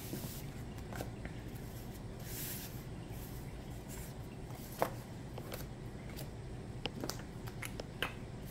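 Cardstock and paper pieces being handled and laid on a work table: a couple of soft rustles and scattered light taps, the clearest about five seconds in.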